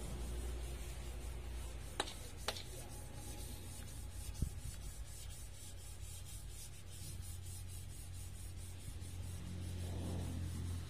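Oxy-gas welding torch flame burning with a steady low rumble. There are a couple of light clicks about two seconds in and a short knock a little later.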